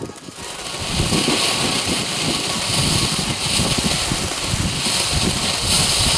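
Small ground fountain firework (Silver Flower) burning: a steady hissing spray of sparks with crackling, building up over about the first second after ignition.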